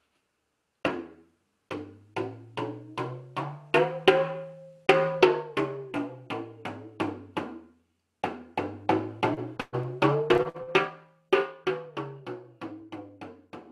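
Talking drum (dondo), an hourglass-shaped pressure drum struck with a curved stick, playing the do-re-mi scale: a run of strokes stepping up in pitch and then back down. The scale is played twice, with a short pause between the runs.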